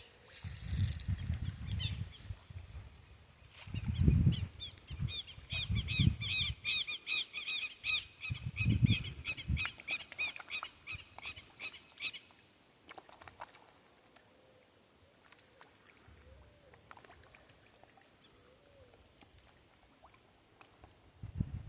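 Birds singing: a long run of rapid, repeated high chirps for most of the first half. Low rumbles come and go under them, and after that only faint background sound remains.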